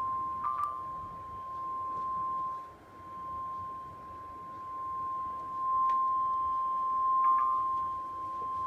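NOAA Weather Radio 1050 Hz warning alarm tone, one steady pitch heard through the radio receiver, its loudness swelling and dipping. It is the attention signal that announces a warning broadcast, here a severe thunderstorm warning.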